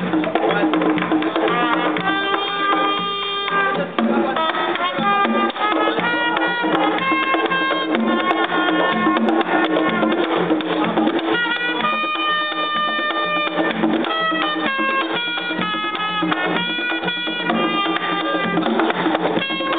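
Live Caribbean band music: drums and hand percussion keeping a steady beat under a held, note-by-note melody.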